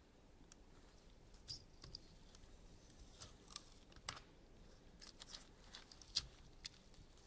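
Sticky adhesive tape being slowly peeled off a laptop screen panel: faint, irregular little crackles and ticks.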